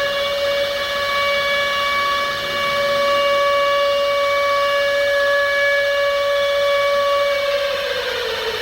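Civil defense warning siren sounding one long steady wail, then winding down in pitch near the end.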